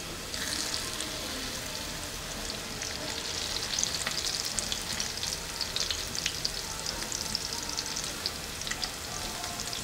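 Shami patties of ground meat and chickpeas sizzling as they shallow-fry in hot oil: a steady hiss with scattered small crackles.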